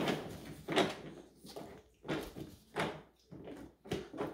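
A baby handling plastic gear toys on a plastic playpen activity panel: several sharp plastic knocks and clacks, roughly a second apart.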